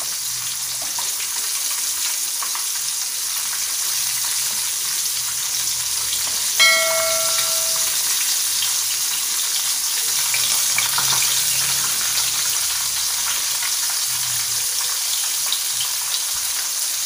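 Catfish coated in crispy seasoned flour deep-frying in hot oil in a wok: a steady sizzle, the coating being what the cook says keeps the oil from popping. About six seconds in, a bell-like chime sounds once over the sizzle and rings for about a second.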